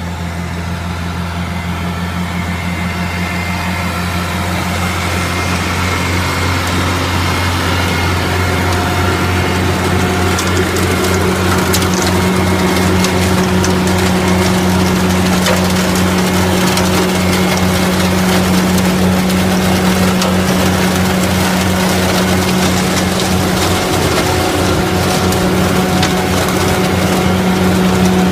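Brouwer BV138 lawn vacuum running off the PTO of a Kubota B7800 diesel tractor: a steady engine-and-fan drone that grows louder over the first several seconds. From about ten seconds in, dry leaves are sucked up the nozzle and hose, with many crackling clicks.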